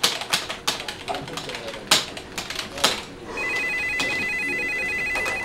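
Keys clicking on a computer keyboard, then about three seconds in a corded desk telephone starts ringing with a fast warbling electronic trill that carries on to the end.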